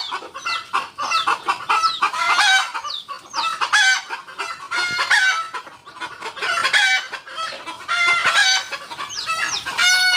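Several chickens clucking and calling over one another in a continuous run of short calls, with a few longer drawn-out calls among them.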